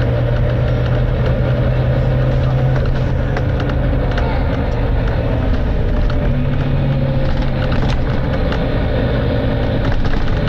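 Volvo B9TL double-decker bus's 9-litre six-cylinder diesel engine running hard at speed, heard from on board, with a loud steady drone and rattles from the body. The engine note holds for about four seconds, eases in the middle, and comes back a couple of seconds later.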